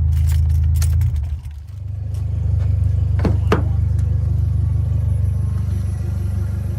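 Mitsubishi Lancer Evolution X's turbocharged four-cylinder running, heard from inside the car as a steady low hum. It dips briefly about a second and a half in, then comes back up, with a few light clicks along the way.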